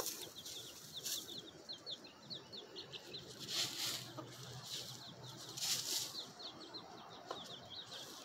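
A hen dust-bathing in dry leaf litter, scuffling and flicking dirt, with two louder rustles about three and a half and five and a half seconds in, over a steady run of quick, high chirps.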